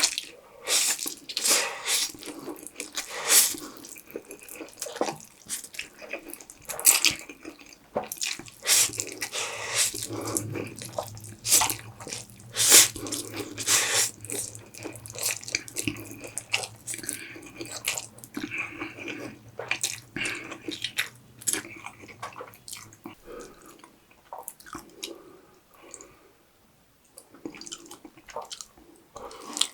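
Close-miked eating sounds: wet chewing, smacking and mouth clicks coming in quick irregular bursts, with a quieter stretch about three-quarters of the way through.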